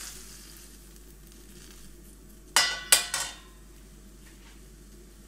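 Boiling water hissing faintly in a wok as a block of udon noodles goes in, fading in the first half-second; then three sharp metal clanks with a short ring a little past the middle, as the metal mesh strainer is set down in a small steel pan.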